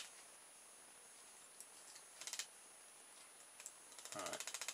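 A few faint clicks, then about four seconds in a small electric motor powered by the solar panel starts to spin, with a brief rising whine followed by a rapid, even ticking of about ten a second.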